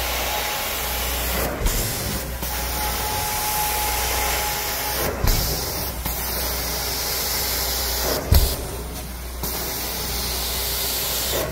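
Hand-held carpet extraction tool spraying hot water into carpet and sucking it back up: a steady rushing hiss. The hiss drops out briefly several times, with a few soft knocks as the tool is moved.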